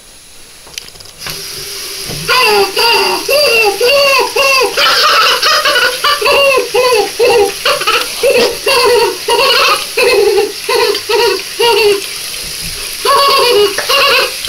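A boy's high-pitched, wordless vocalizing in rapid repeated syllables, starting about two seconds in, over a bathroom faucet running into the sink.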